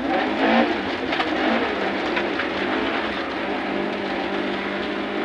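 Rally car engine running hard at a fairly steady pitch, heard from inside the cabin, over a constant rush of tyre and road noise.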